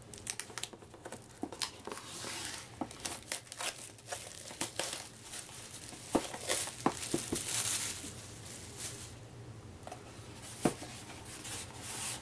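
Crinkling and tearing of packaging as a boxed card game is unwrapped by hand, with scattered clicks and a sharp knock near the end.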